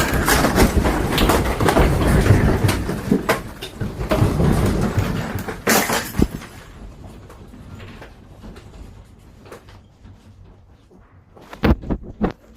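Rattling and banging of loose objects, dense and loud for about six seconds, then dying away to scattered clicks, with a few sharp knocks near the end.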